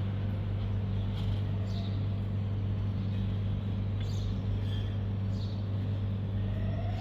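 Steady low electrical hum of refrigerated vending machines over a constant hiss of street noise. A siren begins to rise near the end.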